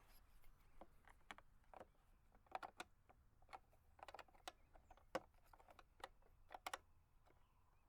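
Scattered light clicks and taps of small parts and tools being handled, some coming in quick clusters of two or three.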